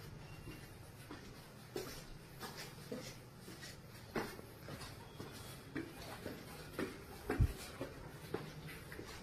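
Footsteps on concrete stairs with irregular scuffs and knocks, plus phone handling noise. A heavier low thump comes about seven seconds in.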